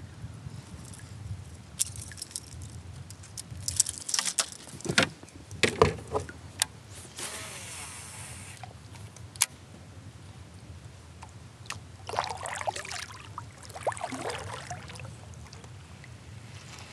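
Small waves lapping at a fishing kayak's hull with light wind, and scattered clicks and knocks on the kayak, with a short hiss about halfway through.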